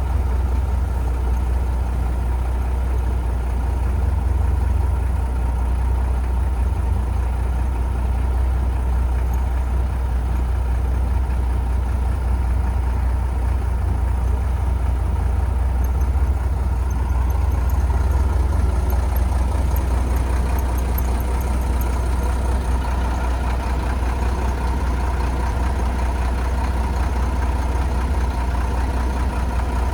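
Diesel engine of heavy earthmoving equipment running steadily with a deep, even drone.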